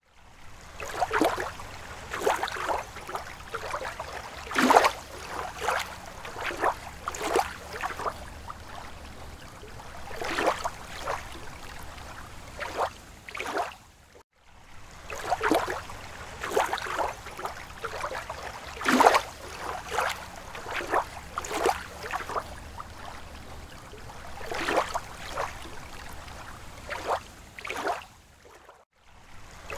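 Rippling water: a continuous run of small, irregular splashes and ripples. There is a brief break about halfway through, where the recording starts over.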